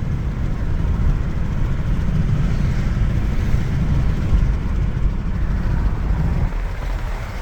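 Steady low rumble of a moving vehicle, road and wind noise heard from a car.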